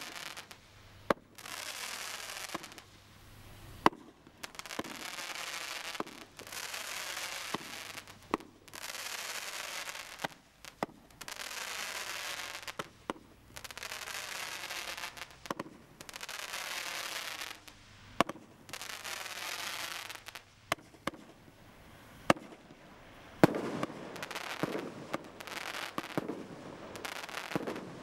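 200-shot firework barrage cake firing: a run of sharp bangs as shots go off, with repeated hissing stretches a second or two long between them.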